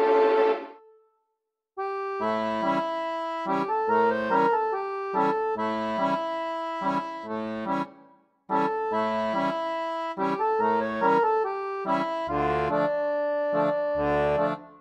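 Background accordion music with a steady rhythm of bass notes under held chords and melody. It cuts out briefly about a second in and again around eight seconds.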